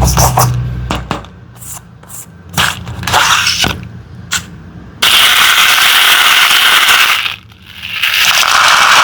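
Crisp clicks and short scrapes of small hard things being handled. From about five seconds in comes a loud, dense, continuous rattling hiss, which breaks off briefly past seven seconds and then starts again.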